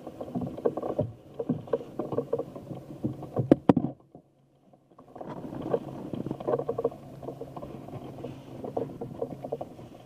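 Open-air sound aboard a boat on the water: irregular knocks, clicks and bumps over a faint steady low hum. The sound nearly drops out for about a second, around four seconds in.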